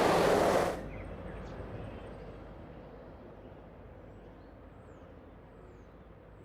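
Cartoon magic sound effect from Winx Club's Believix: a loud rushing burst of noise for about the first second, then a fading hiss with a few faint, high falling chirps.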